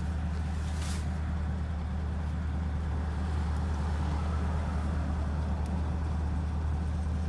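2017 Chevrolet Camaro 2SS's 6.2-litre V8 idling steadily, with no door-open chime sounding: a sign of the car's fault that leaves it with no sound anywhere.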